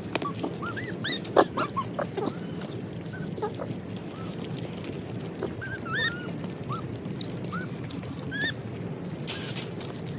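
Macaque monkeys making short, high, rising-and-falling chirps over and over as they feed, with a few sharp clicks and rustles from bananas being handled.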